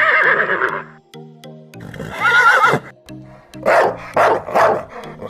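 Horse neighing over background music: a wavering call about two seconds in, then three short quick calls near the end.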